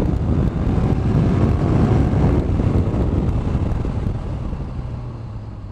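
2016 Honda VFR1200X Crosstourer's 1200cc V4 engine running at road speed, with wind rushing over the rider's microphone. The sound grows quieter over the last couple of seconds, leaving a steady low engine hum.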